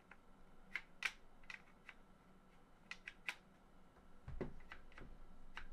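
Scattered small sharp clicks and taps of metal parts being worked by hand in the upper receiver of a Daytona SCAR-H gas blowback airsoft rifle, with a duller knock about four and a half seconds in. The part being pushed forward is binding on something.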